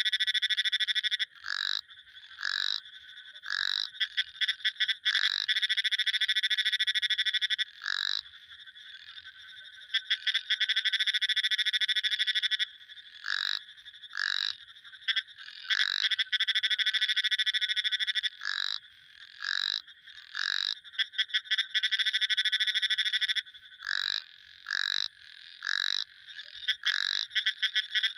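Frogs calling: long, rapid, high-pitched pulsed trills lasting several seconds, broken up by short single notes in groups of two or three.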